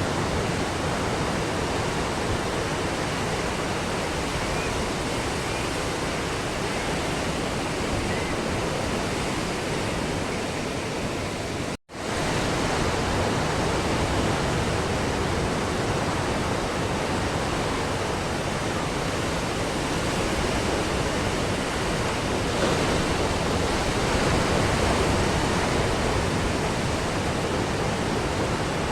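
Ocean waves breaking on a beach: a steady wash of surf. The sound drops out for an instant about twelve seconds in, then carries on.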